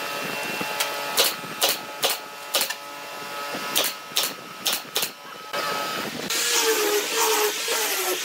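Pneumatic nail gun firing about nine times in quick, uneven succession into a pine ring. About six seconds in it gives way to a handheld rotary sander with a sanding disc running on the wood, its pitch wavering as it is pressed and moved.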